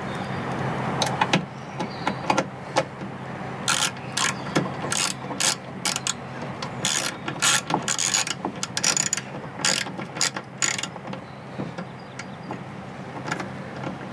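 Hand ratchet clicking in short runs of rapid clicks as it starts screws that hold a plastic wheel-well liner. There are only a few scattered knocks for the first few seconds, and the runs of clicks begin about four seconds in.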